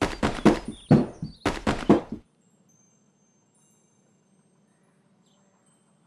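Cartoon sound effects of toy parts tumbling out of a tipping dump-truck bed: a quick run of thunks and chime-like clunks that stops about two seconds in.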